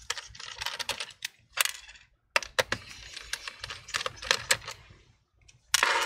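Irregular light clicks and scraping of a precision Phillips screwdriver and small screws against a laptop's bottom cover as the cover screws are taken out.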